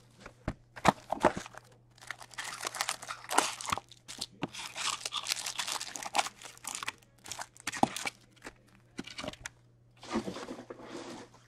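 Cardboard hobby box of Topps Chrome baseball card packs being handled and opened, then the wrapped packs crinkling and rustling as they are pulled out and stacked, with scattered taps and clicks.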